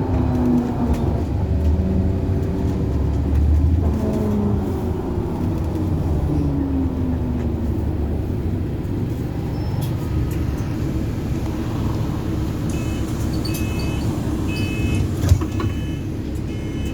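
Bus drivetrain heard from inside the moving bus, a whine falling in pitch three times in the first eight seconds as it slows, the odd accelerator and brake noise. Near the end come a run of short high beeps and one sharp knock.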